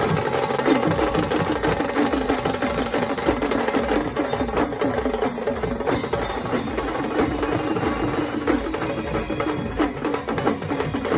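Traditional Maharashtrian drum troupe playing a fast, dense stick rhythm, with quick repeated strokes and short ringing drum tones.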